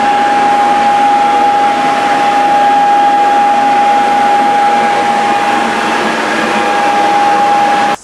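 Smoke alarm sounding one steady, unbroken tone over a loud hiss.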